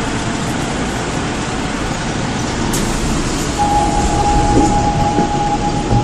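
Seoul Metro 4000-series electric train with Mitsubishi GTO VVVF traction, running with a steady rumble of wheels and running gear. There is a click about three seconds in, and a steady high tone sets in a little past halfway.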